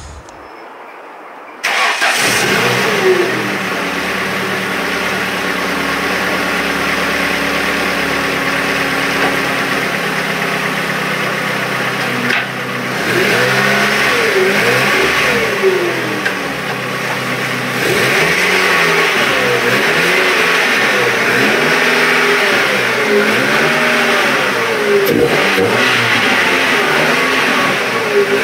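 Ford Focus engine running: it comes in abruptly about two seconds in, runs at a steady idle, then from about twelve seconds in is revved up and down again and again.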